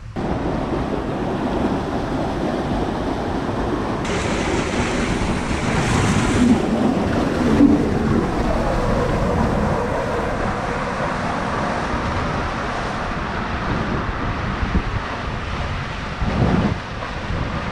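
Steady rush of water and a rider's body sliding down an enclosed water slide tube, heard from inside the tube. It starts abruptly and runs without a break.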